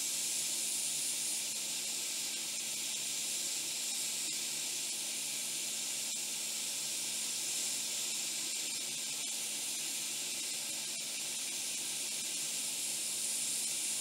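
Hot air rework station blowing a steady hiss of air, desoldering a shorted MOSFET from a laptop motherboard.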